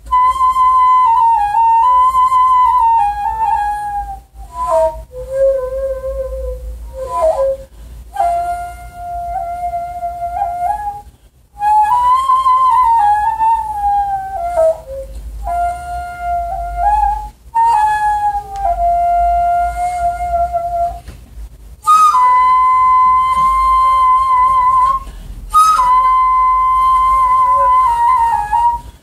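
Daegeum, the large Korean bamboo transverse flute, playing a slow melody alone. Long held notes bend and waver in pitch, in phrases broken by short pauses for breath.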